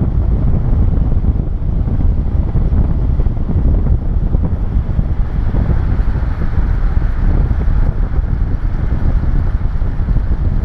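Loud, steady wind rumble buffeting the microphone, a deep blustery noise with no distinct tones.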